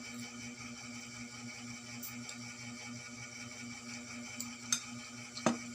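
Steady low room hum, then two or three short sharp clinks near the end.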